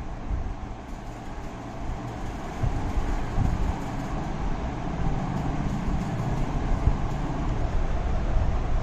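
Low rumbling noise with irregular bumps, growing louder about three seconds in.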